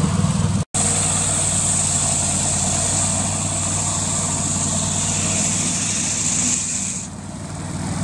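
Engine of an antique ice saw running steadily while its circular blade cuts through lake ice with a loud high hiss. About seven seconds in the hiss stops and the overall sound dips as the blade eases off.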